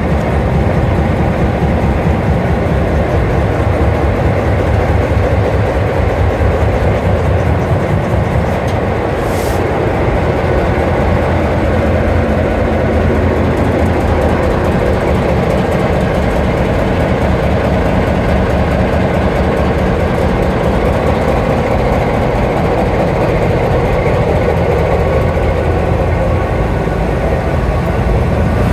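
Diesel engines of an EMD E9Am locomotive (two EMD 12-645 prime movers and a Cummins KTA19 generator engine) running steadily, heard from inside the engine room as a loud, even, churning drone. A short hiss sounds about nine seconds in.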